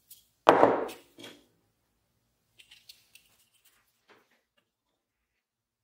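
A small hardwood block set down on a plywood bench top: one loud wooden knock about half a second in, a lighter knock just after, then a few faint clicks.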